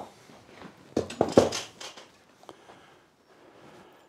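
Metal clatter as a steel swage and a metal bucket are handled at the anvil: a few sharp clanks about a second in, then faint rubbing as vermiculite is wiped off the piece.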